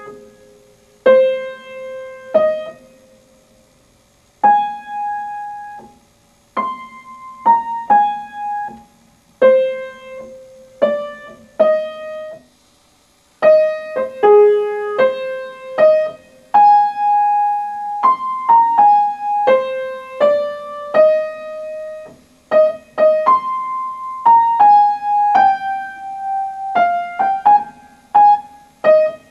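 Upright acoustic piano playing a simple melody, mostly one note at a time. The playing is halting, with two short silent pauses in the first half, then runs on more evenly.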